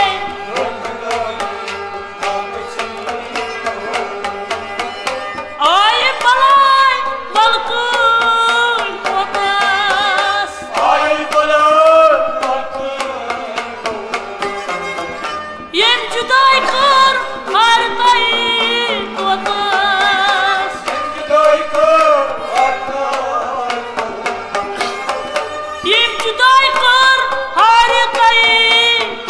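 Kashmiri folk ensemble playing: harmonium, bowed sarangi and plucked rababs over a clay-pot drum (matka) struck in a steady rhythm. A male voice sings ornamented phrases that enter about six seconds in and come back several times between instrumental passages.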